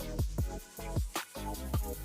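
Background music with an electronic beat: deep bass thumps that drop in pitch, about two a second, under a repeating melody.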